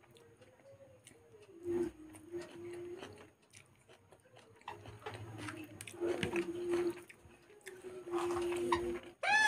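Close-up eating sounds of rice and curry being eaten by hand: chewing, wet mouth clicks and soft lip smacks, with a faint steady hum coming and going. A short rising cry sounds right at the end.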